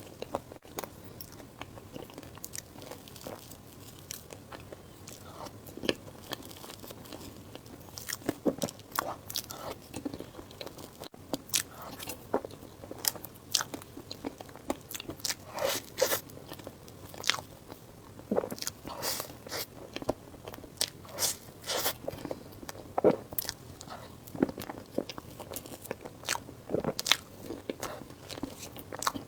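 Close-miked eating: a person biting and chewing food, a quick irregular series of short crunches and mouth clicks. The crunches are sparser for the first ten seconds or so, then come thicker.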